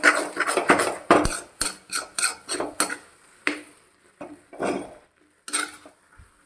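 A spatula scraping and knocking against a kadhai while stirring cooked Maggi noodles: quick, dense strokes for about the first three seconds, then fewer strokes with short pauses between them.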